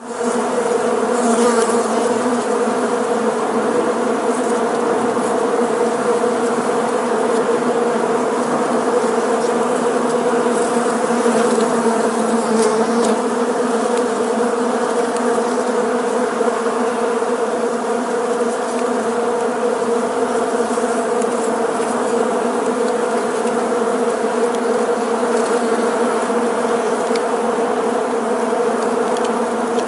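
Many bees buzzing together in a steady, unbroken drone, fading in at the very start.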